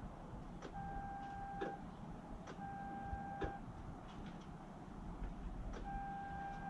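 Toyota Tacoma's turn-signal flasher switched on for a test. It gives a steady beep about a second long with a relay click at the start and end of each one, repeating roughly every two seconds. There is one longer pause before the last beep, which carries on.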